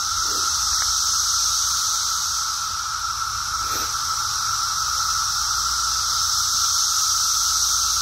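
Chorus of Brood X periodical cicadas: a steady, unbroken drone of many insects singing at once, with a lower buzzing pitch and a higher shrill one held together.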